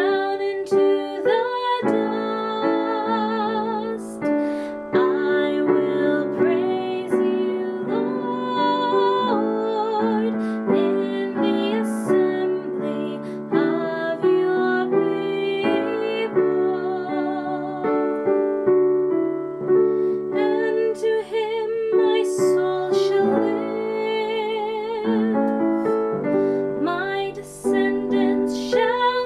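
A woman singing a responsorial psalm setting with keyboard accompaniment, the melody held in long notes with vibrato.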